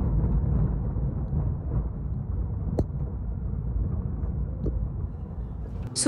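Steady low road rumble heard inside a moving car, with two faint clicks.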